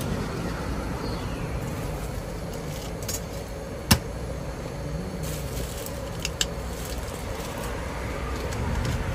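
Steady low rumble of road traffic. About four seconds in comes one sharp knock of a plastic cooler box lid being shut, then a couple of lighter clicks a little later.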